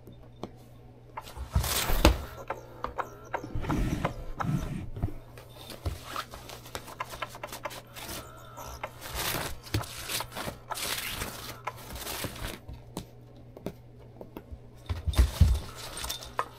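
Fabric play mat rustling and scraping over the floor as a cat wrestles and rolls on it, with scattered clicks and knocks. Heavy thumps come about two seconds in and again near the end.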